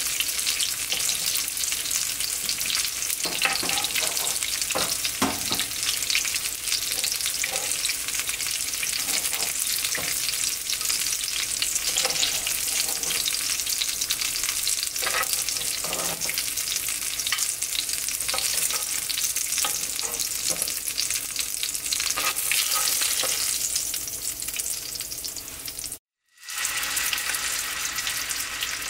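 Ground-beef seekh kebabs sizzling in a frying pan, nearly cooked through, with scattered sharp clicks over the steady sizzle. The sound cuts out briefly near the end and comes back quieter.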